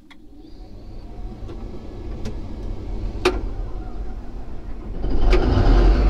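Caterpillar D11 bulldozer's diesel engine being started from inside the cab: it turns over with a steadily rising sound, then catches about five seconds in and settles into a loud, steady run.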